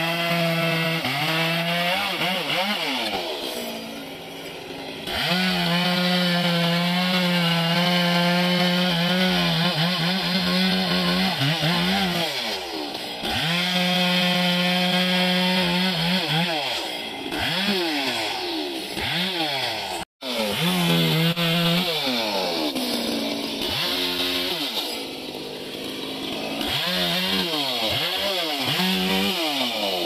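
Chainsaw cutting wood. The engine holds a steady high whine under throttle, then repeatedly sags and climbs back in pitch as the chain bites and the load changes. The sound cuts out for an instant about two-thirds of the way through.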